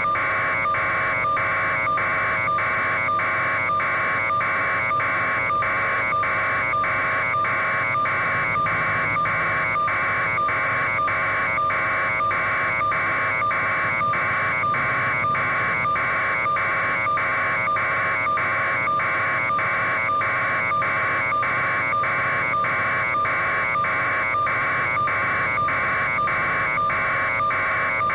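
Steady electronic buzz, broken by brief regular dropouts about twice a second, over a low steady hum.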